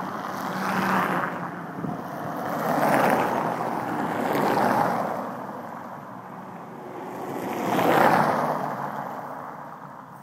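A string of vehicles passing by one after another, each a swell of road and tyre noise that rises and fades away; the loudest passes about eight seconds in, then the noise dies down.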